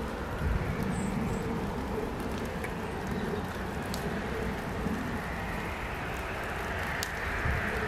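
Steady outdoor background rumble and hiss, with a few faint ticks.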